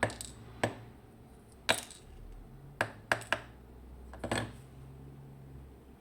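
Small metal parts of a disassembled Mottura C55 dimple lock clicking sharply against a hard surface as they are handled and set down, about seven irregular clicks with a small cluster near the middle.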